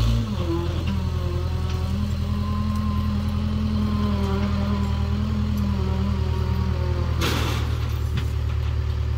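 Backhoe loader's diesel engine running steadily while it works, with a short burst of hiss about seven seconds in.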